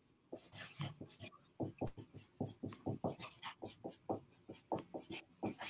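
Marker pen scribbling on a flip-chart pad: a quick, uneven run of short strokes, about five or six a second.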